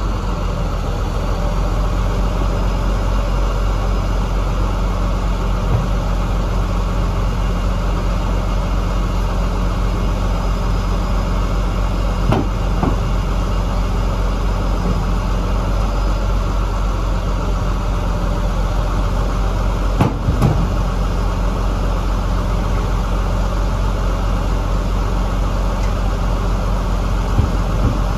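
KAMAZ truck's diesel engine running steadily at a constant speed, with a few brief clicks or knocks over it, the sharpest about two-thirds of the way through.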